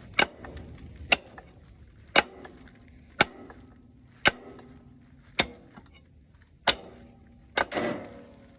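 A big steel bar striking the pistons of a Wisconsin V4 engine to break them out of the cylinders: about eight sharp metallic blows, roughly one a second, each ringing briefly.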